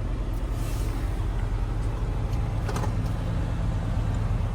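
Steady low road and engine rumble of a vehicle cruising on the highway, heard from inside the cabin, with a couple of faint clicks.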